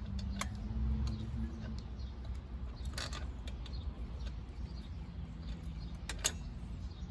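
Scattered small metallic clicks and ticks of brake linkage parts being handled and fitted, with a sharper pair of clicks about six seconds in, over a steady low hum.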